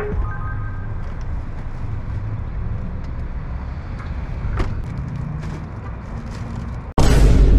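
Parking-lot ambience: a steady low rumble of traffic, with a few light knocks and rustles of grocery bags being loaded into a car. Near the end, loud music starts suddenly.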